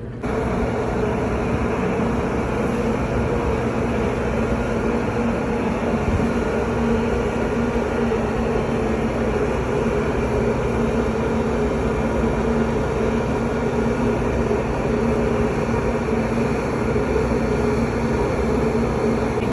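Boat engine running steadily, a continuous drone with a steady hum in it, cutting in abruptly at the start.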